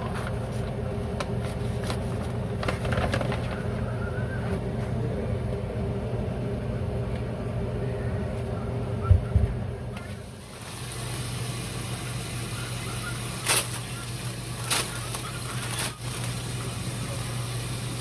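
A steady mechanical hum with a few sharp clicks in the second half; the sound changes abruptly about ten seconds in.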